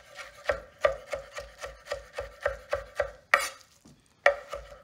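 Chef's knife chopping cooked spinach on a wooden cutting board, the blade knocking on the board about three to four times a second. The chopping stops briefly about three and a half seconds in, then starts again with a louder knock.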